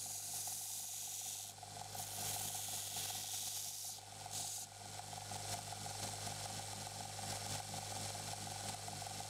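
Electric belt grinder running steadily while a steel knife blade is pressed to the sanding belt in three short passes during the first half, each a loud hissing grind. The grinder keeps running with a steady hum once the blade is off the belt.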